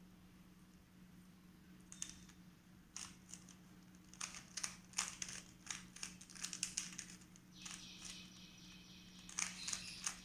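Plastic Rubik's Cube layers being twisted by hand, a run of quick, irregular clicks and clacks starting about two seconds in.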